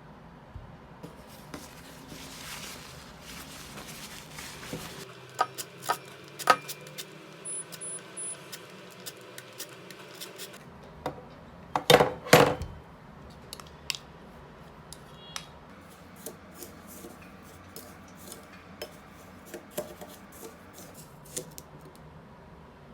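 Kitchen prep handling sounds: scattered clicks and clinks of utensils and dishes on a counter, with a louder pair of knocks about twelve seconds in.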